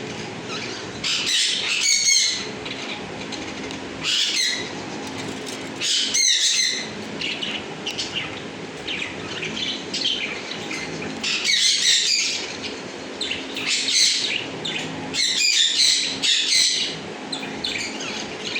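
Cage birds chirping in repeated bursts of high, rapid calls, over a steady low hum.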